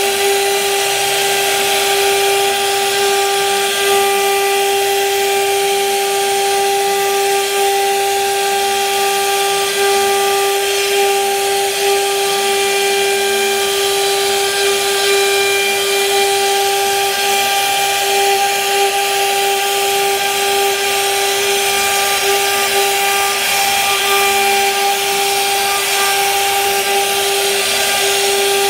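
CNC router spindle running with a steady high whine while its bit routes grooves into a wooden board, with a constant hiss of cutting under the tone.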